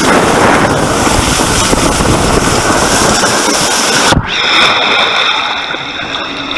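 Rider on a foam mat sliding fast down a multi-lane mat racer water slide: a loud, steady rush of wind on the microphone and water over the slide. About four seconds in comes a sudden splash into the runout water, after which the sound drops to a quieter hiss of water spraying around the mat.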